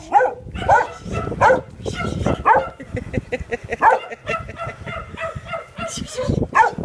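Puppy barking in short, high yaps, roughly one a second, during tug-of-war play with a cloth toy.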